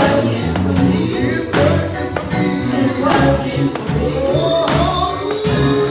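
Live gospel praise music: a band with bass and a steady beat, a tambourine shaken and struck in time, and a sung line over it.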